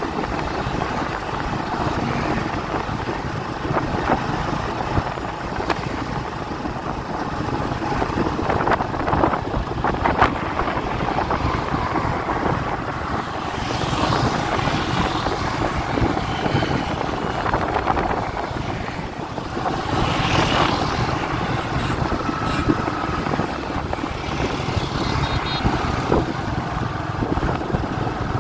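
Steady wind rush over the microphone with road and engine noise from a moving vehicle in traffic, swelling louder twice, about 14 and 20 seconds in.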